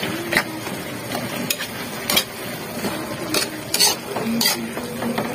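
Metal ladle stirring and scraping grated green papaya in a metal wok over a steady sizzle, with a sharp clink or scrape of metal on the pan about once a second.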